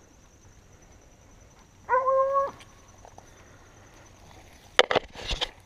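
A hunting dog close by gives one short, even-pitched whine about two seconds in. Near the end come a few sharp knocks and rustling from gear being handled close to the camera.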